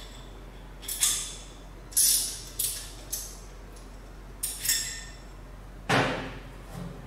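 A steel spanner and small metal fittings clinking as they are handled and set down on a metal surface: several light, ringing clinks about a second apart, then a louder knock near the end.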